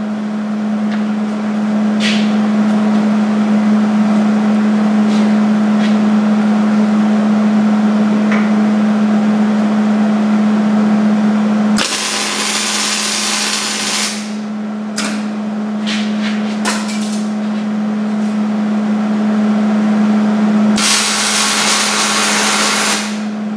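Wire-feed welder laying two tack welds on a steel truck-frame splice: two bursts of arc crackle of about two seconds each, one about halfway through and one near the end, over a steady low hum.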